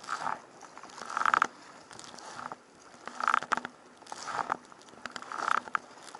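Kayak paddle strokes in a Feathercraft K1 folding sea kayak, about one a second: each stroke brings a burst of water splashing with clicking creaks, over a steady wash of sea noise.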